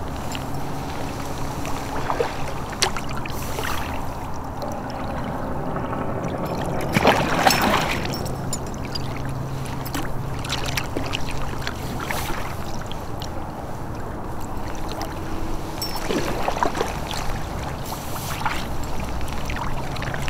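Water lapping and sloshing against a kayak hull as a hooked musky tows the kayak along, over a steady low rumble, with a brief louder surge about seven seconds in.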